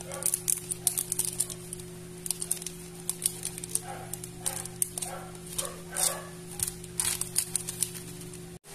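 Plastic ice cream bar wrapper crinkling and crackling as it is peeled open by hand, in quick irregular crackles, over a steady low hum.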